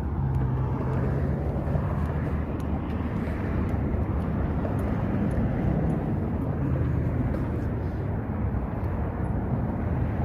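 Steady vehicle noise: a low engine hum under an even wash of road or wind noise, with no change through the stretch.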